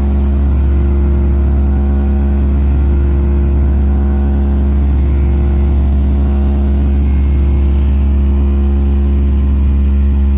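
Sustained deep bass drone from a DJ sound-check track played through a new speaker box, steady and unbroken, with fainter higher hum tones above the bass.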